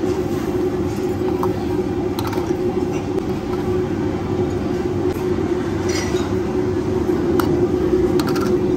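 Steady, loud roar of a hawker stall's wok station over a lit gas burner. A metal ladle clinks against the wok now and then, with a few quick clinks near the end.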